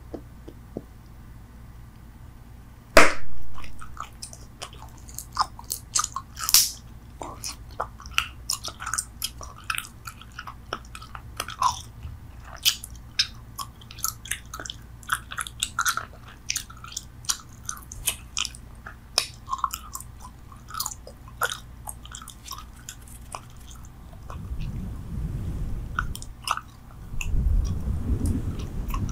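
Bubble gum chewed with the mouth close to the microphone: a steady run of wet clicks and smacks, with one sharp, louder click about three seconds in. A low rumble joins the chewing near the end.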